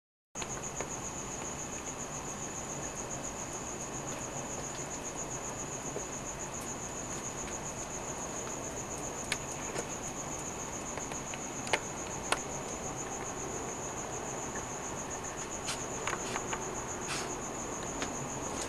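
Cricket chirping in a steady, high, unbroken trill, with a few faint clicks in the middle and near the end.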